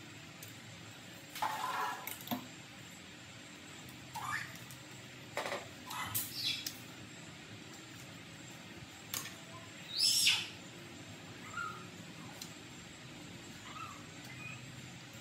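Scattered short scrapes, clicks and crackles from eating at a plate: cutlery on the plate and lettuce leaves handled and torn by hand. A few brief squeaks are mixed in, and the loudest crackle comes about ten seconds in.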